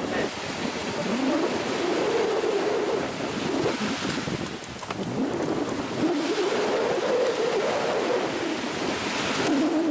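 Small waves washing onto a sandy shore, with wind on the microphone. Under it runs a wavering hum that slowly rises and falls in pitch.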